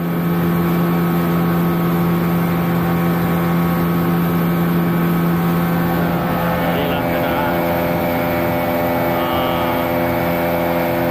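A small boat's outboard motor running steadily at cruising speed, a constant drone, with water splashing along the hull.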